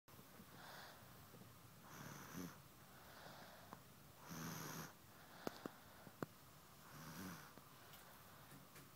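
A pet snoring faintly, with soft noisy breaths about every second and a half, some carrying a low rattling buzz. Three sharp clicks come a little past halfway.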